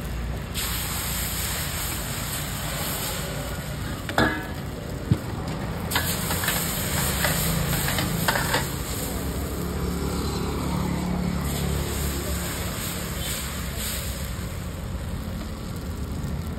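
Chakuli batter sizzling on a hot flat griddle as the thin crepes are poured and cook, with two sharp knocks about four and five seconds in. A low rumble runs underneath.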